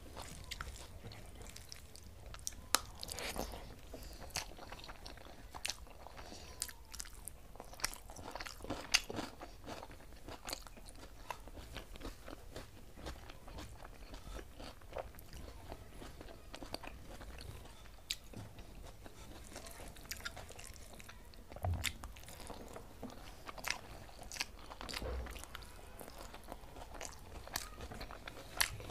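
Close-up eating sounds: chewing and mouth clicks as rice, moong dal and egg omelette are eaten by hand, with fingers mixing rice on a steel plate. Irregular sharp clicks throughout, a few of them louder.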